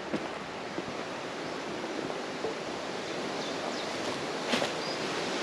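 Steady rush of wind in the trees, with a few faint clicks.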